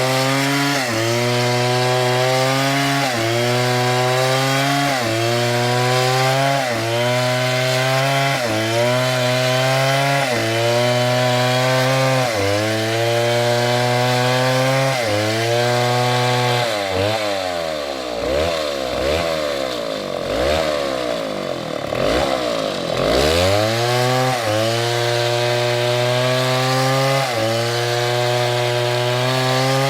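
STIHL MS720 chainsaw running at high revs through a cut, its engine pitch dipping and recovering about once a second. About 17 seconds in, the engine slows sharply and revs back up several times before settling back into the cut.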